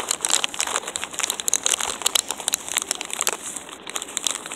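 Dense, irregular crackling and rustling right at the microphone, thickest in the first three seconds and thinning out after that.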